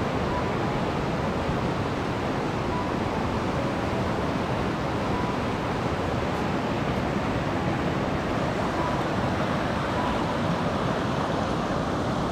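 Fast-flowing Tirthan mountain river rushing steadily.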